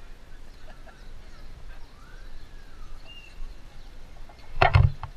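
Faint outdoor street ambience with a brief, loud thump near the end.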